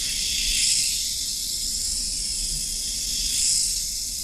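Miniature RC tank's small electric track motors and rubber tracks running, a steady high buzzing hiss that swells twice as it drives.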